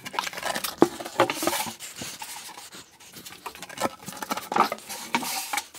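Worktop panels being handled and set down onto a wooden workbench frame: irregular wooden knocks, scrapes and clatter, with a sharp knock a little under a second in.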